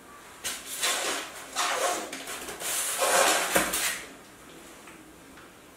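Small plastic parts, such as battery terminal caps or fittings, being picked up and handled by hand. They clatter and rustle in a run of bursts over about three and a half seconds, then stop.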